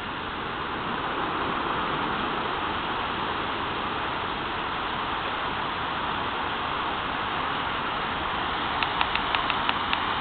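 Steady roar of heavy hurricane surf breaking on a breakwater, mixed with wind. A few small clicks come near the end.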